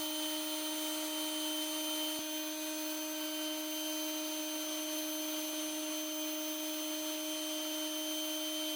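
Electric drill spinning a wire brush, running steadily with a constant motor whine and hiss.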